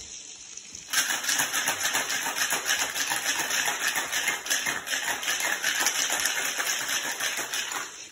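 Ice rattling hard in a Boston shaker (metal tin capped with a mixing glass) as a cocktail is shaken: a fast, steady rattle that starts about a second in and stops abruptly about seven seconds later.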